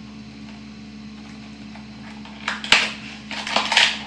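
Earbud box being opened: a steady low hum for the first couple of seconds, then a sharp click and a run of rustling and scraping as the cardboard box and its paper and plastic packaging are handled.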